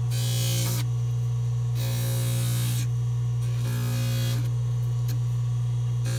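Dental lab polishing lathe running with a steady hum while a soldered rapid palatal expander appliance is held against its spinning polishing wheel. Polishing hiss comes in three bursts of about a second each as the metal is pressed to the wheel.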